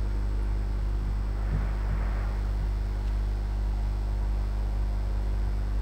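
Steady electrical mains hum, a constant low buzz with no speech over it.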